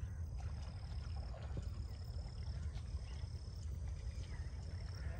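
Outdoor field ambience: wind rumbling on the microphone, with a high, thin call repeating in notes of about a second each with short gaps, and faint scattered chirps.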